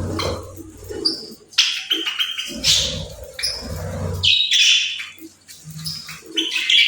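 Budgerigars chirping and chattering in quick, irregular high chirps, over a low rumble for the first four seconds or so.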